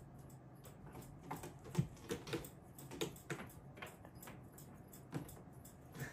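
Bengal cat batting at a string toy on a carpeted cat tree: a dozen or so light, irregular taps and scuffs of paws and claws against the tree and the swinging toy.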